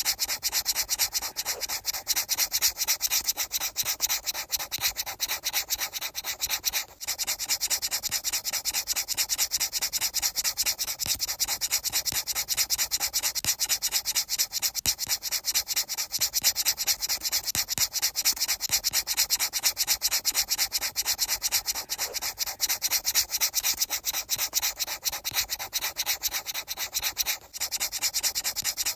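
Fast, even, rhythmic rubbing or rasping noise, heavy in the treble. It breaks off briefly about 7 seconds in and again near the end.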